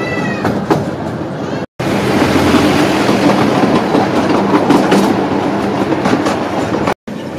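Miniature railway train running along the track, wheels clicking over the rail joints over a steady low hum. The sound breaks off abruptly twice, about two seconds in and near the end.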